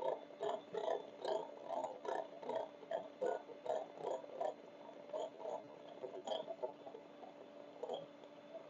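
Electric hand mixer beating eggs and sugar in a glass bowl, running faintly with a steady hum while its beaters knock and scrape against the bowl in a quick rhythm of about two or three strokes a second, thinning out in the second half.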